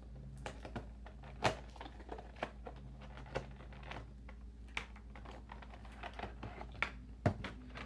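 Irregular clicks, crackles and small knocks of cardboard and plastic packaging handled as a boxed vinyl figure is opened, with sharper snaps about one and a half seconds in and near the end.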